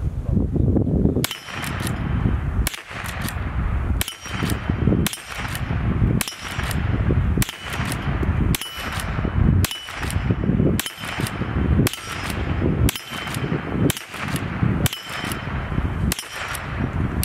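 Henry Golden Boy .22 LR lever-action rifle fired over and over, a shot about every one to one and a half seconds, with the metallic clack of the lever being cycled between shots.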